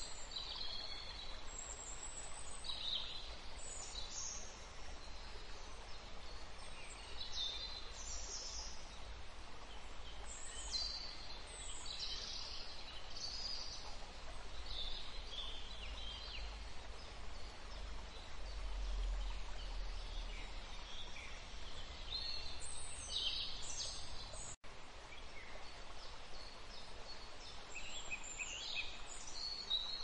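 Caged canaries and finches calling: scattered short, high chirps over a steady background hiss and low hum. The sound cuts out for an instant about three-quarters of the way through.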